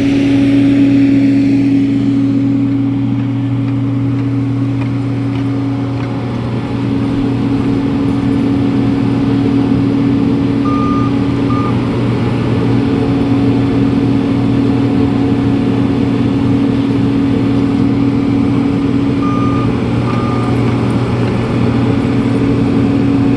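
Heavy diesel engine of a road milling machine running steadily under load as it is driven onto a trailer. Short electronic alarm beeps sound in pairs twice, about halfway through and again later.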